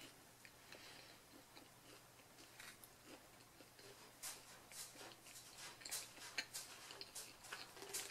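Faint close-miked chewing of pineapple pizza with the mouth closed: soft wet mouth clicks, sparse at first and more frequent in the second half.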